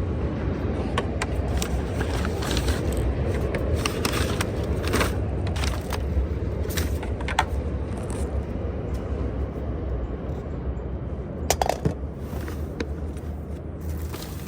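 Things being rummaged through and shifted in a dumpster: scattered clicks, knocks and scrapes, with a few sharper knocks near the end, over a steady low rumble.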